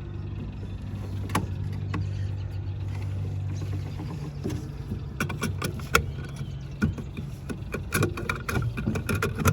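Clicks and clunks in a skid steer cab from about five seconds in, as the operator lowers the seat bar lever and buckles the seat belt, the interlocks the machine needs before it will start. A steady low hum runs underneath during the first half.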